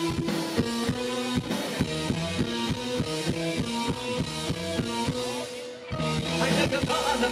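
Live rock band playing an instrumental passage: a steady drum-kit beat under held keyboard and guitar notes. The band drops out briefly a little before six seconds, then comes back fuller and louder.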